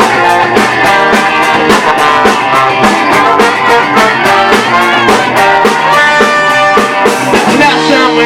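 Live band music with guitar over a steady drum beat, played without singing.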